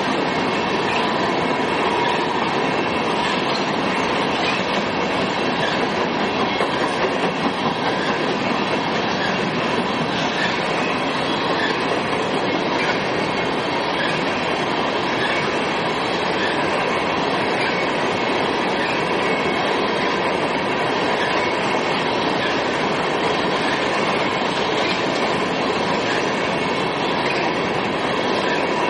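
Freight train of open-top hopper cars rolling past close by on curved track: a steady, unbroken noise of steel wheels on rail with a thin, steady high tone running through it.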